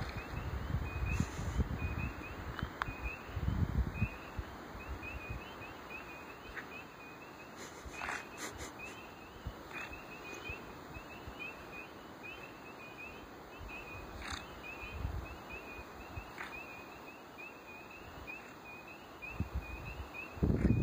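A chorus of spring peepers: short, rising, high peeps repeating about twice a second throughout. Low buffeting on the phone's microphone is louder than the peeps in the first few seconds and again near the end.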